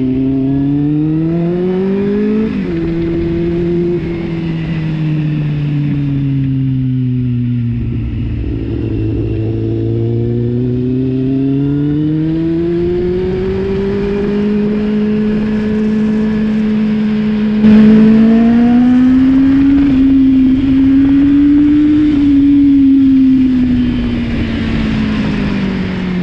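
Kawasaki Z750R inline-four engine and exhaust under riding, its revs rising and falling with the throttle, with a quick rise and drop early on like a gear change. It gets suddenly louder about two-thirds of the way through.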